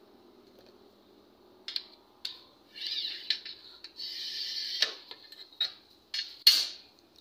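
Glass cutter wheel scoring a glass sheet along a straightedge: a scratchy, squealing score in two strokes, about three and four seconds in. Sharp clicks and knocks of tools on the glass come around them, the loudest near the end.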